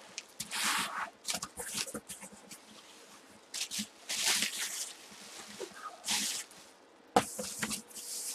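Cardboard box being handled: a series of short scraping and rustling sounds of cardboard, with a sharp knock about seven seconds in.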